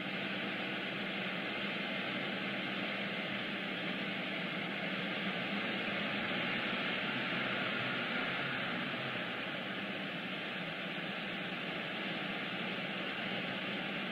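Steady, even background noise with a faint low hum and no distinct events.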